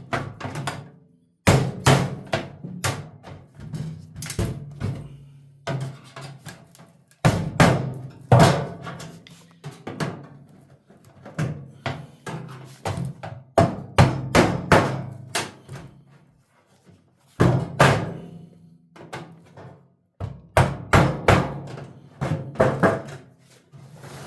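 Hammer striking a screwdriver against a microwave oven's sheet-metal casing to force it apart: runs of rapid, sharp blows broken by short pauses.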